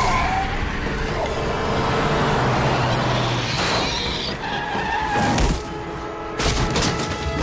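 Film sound mix of heavy rain under dramatic music, with high screeches that sound like a skid, and a quick run of sharp impacts about six seconds in.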